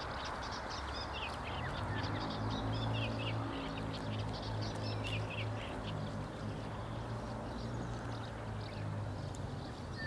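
Birds calling, many short high chirps over a steady rushing background, with a low steady hum coming in about a second and a half in.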